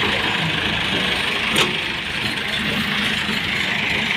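Diesel engine of heavy machinery running steadily, with a single sharp knock about one and a half seconds in.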